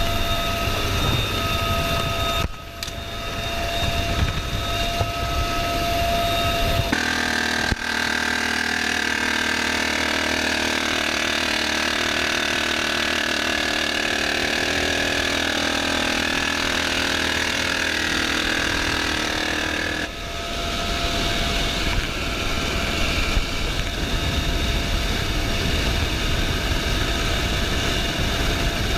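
UH-1Y Venom helicopter in flight, heard from the open door-gunner position: steady rotor and turbine noise with a whine. The tone changes abruptly about 7 seconds in, losing its deep rumble, and changes back about 20 seconds in.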